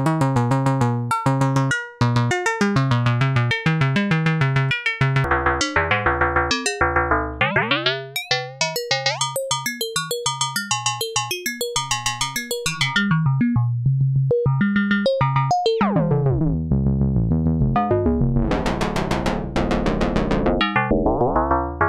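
A Plaits Eurorack macro-oscillator plays a fast sequenced pattern of short synth notes. Its tone keeps changing as different synthesis models are selected and a knob is turned, and now and then a note glides in pitch.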